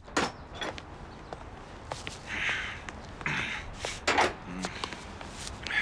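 A sharp knock at the start, then scattered knocks, clicks and rustling as people move about a room.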